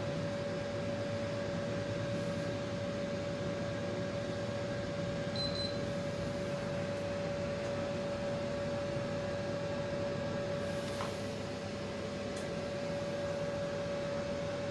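Daikin FTV25BXV14 split air conditioner's indoor unit running, a steady rush of air with a steady hum. A short high beep about five and a half seconds in is the unit acknowledging a remote-control signal, and a single click follows about eleven seconds in.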